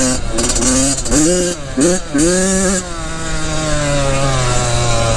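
Dirt bike engine revving on and off the throttle, the pitch dropping and rising several times before holding steady for the last couple of seconds.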